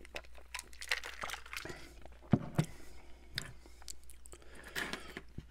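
Close-miked mouth sounds of eating and drinking: a gulp from a glass, then chewing with scattered sharp clicks and crunches, the loudest a little past two seconds in.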